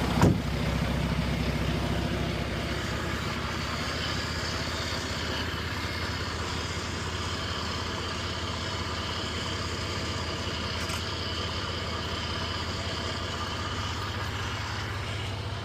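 Diesel engine of a stuck concrete mixer truck running steadily with a low, even drone.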